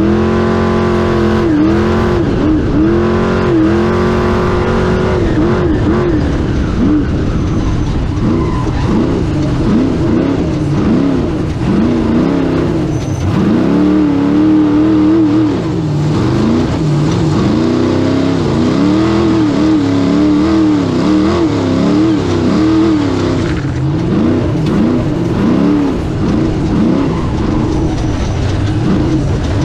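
Off-road race car's engine heard from inside the cab, revving up and down continuously as the throttle is worked over rough terrain. The rise and fall in pitch comes every second or two, over a steady rush of tyre, chassis and wind noise.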